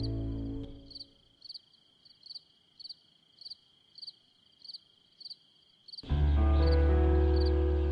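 Show music fades out in the first second, leaving crickets chirping in an even, steady rhythm of about two or three chirps a second. At about six seconds the music cuts back in loud with a deep bass.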